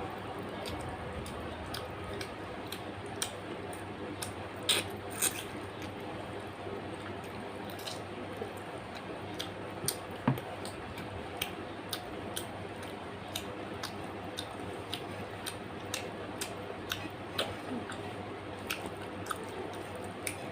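Close-up eating sounds: wet chewing and lip smacks, with small clicks scattered irregularly and a few louder ones, over a steady low background hum.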